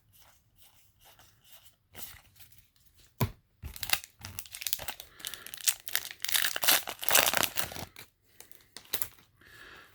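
Foil booster-pack wrapper being torn open and crinkled, a few sharp snaps at first, then a few seconds of dense crackling that stops about two seconds before the end.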